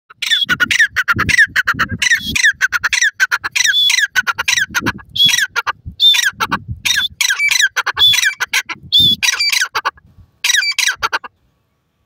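Grey francolin calling loudly close by: a fast series of harsh, clicking phrases, each made of sharp notes falling in pitch, repeated over and over with only short gaps. The calling stops about a second before the end.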